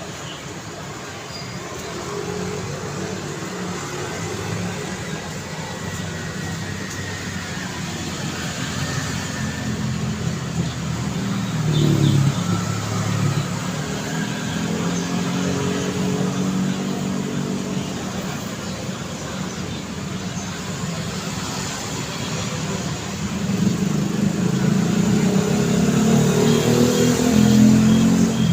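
Road traffic on a city street: car engines passing over a steady traffic hum, with one vehicle swelling by about 12 seconds in and a louder pass building from about 23 seconds. A few short high beeps sound near the end.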